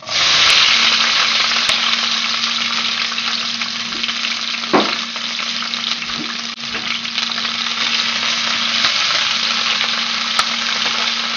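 Sliced red and green bell peppers sizzling in hot vegetable oil in a stainless steel skillet on medium-high heat. The sizzle starts suddenly as they hit the oil, then runs on steadily while they are stirred, with one short knock about five seconds in.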